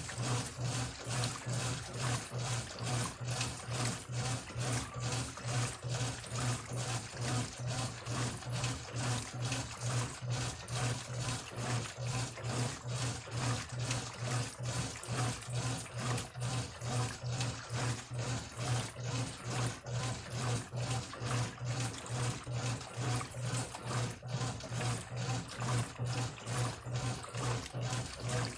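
Brastemp electronic top-load washing machine agitating on its pre-wash setting: the motor hums and the agitator churns the wash water back and forth in a steady rhythm of about two strokes a second. The owner says the machine's motor capacitor needs replacing.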